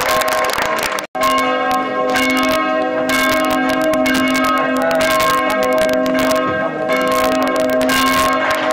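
Church bells ringing continuously, several bell tones sounding together over many quick strikes, with a brief dropout about a second in.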